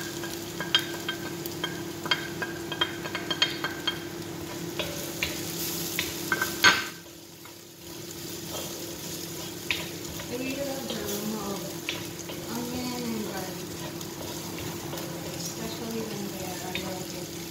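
Shallots and chopped garlic sizzling in hot oil in a wok while a wooden spatula stirs them, scraping and tapping against the wok. The taps come thick for the first several seconds, ending in a loud knock about seven seconds in, followed by a short lull before the sizzling picks up again.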